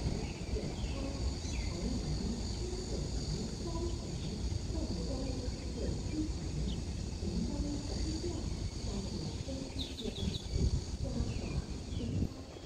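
Outdoor railway station ambience between trains: a steady low rumble, with insects droning steadily at a high pitch and faint scattered chirps over it.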